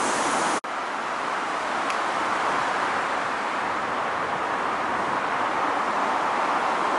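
Semboku Rapid Railway 5000-series electric train running at the platform, cut off abruptly about half a second in. Then a steady wash of outdoor background noise with no train present, like distant road traffic and wind.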